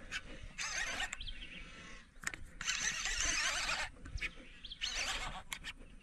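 Fishing reel buzzing in about four short bursts, each under a second or so, while a hooked alligator gar is played on the rod.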